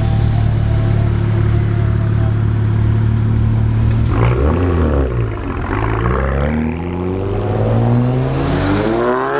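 Performance car engine running at a steady drone, then revving up and down a few times from about four seconds in, ending in a long hard acceleration whose pitch climbs to a peak at the very end as the car passes.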